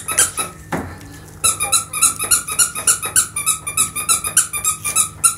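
Rapid run of short high-pitched squeaks, several a second. It stops about half a second in and picks up again about a second later.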